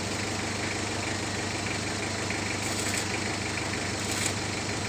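A steady engine idling hum, with two brief high hisses, one a little past halfway and one near the end.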